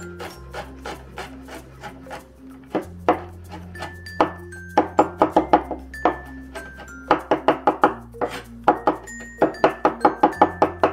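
Cleaver mincing garlic on a wooden cutting board: quick runs of sharp knocks, about eight to ten a second, broken by short pauses, the runs coming thicker in the second half.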